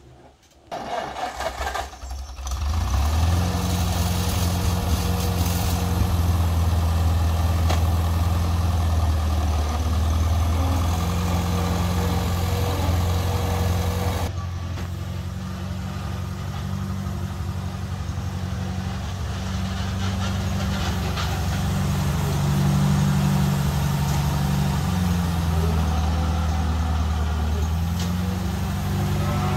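Farmall Cub tractor's small four-cylinder flathead engine starting: a couple of seconds of ragged cranking before it catches, then running steadily as the tractor is driven slowly across the yard.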